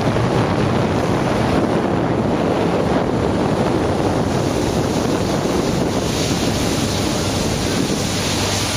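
Steady rush of wind blasting the microphone and water hissing and slapping as motorboats run fast across open water, with a low engine drone underneath.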